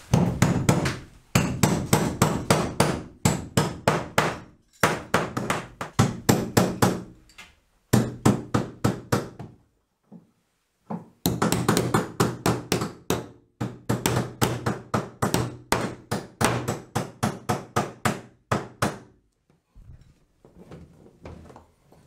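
Hammer driving steel nail stops (nail plates) into wooden wall studs, in quick runs of blows several a second with short pauses between plates.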